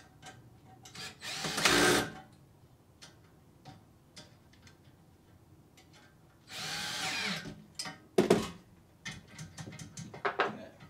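Cordless drill driving a socket to tighten the bolts on a carpet-cleaning wand's valve bracket: one short, loud run about two seconds in and a second, quieter run a few seconds later. A sharp knock follows, then light metal clicks and clatter near the end.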